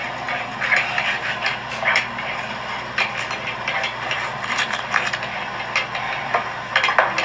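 Meatballs and onions frying in a pan: a steady sizzle dotted with irregular crackles and clicks.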